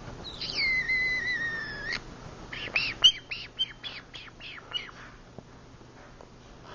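Green-cheeked conure making noises in its sleep: one long, slightly wavering whistle, then a quick run of about eight short chirps.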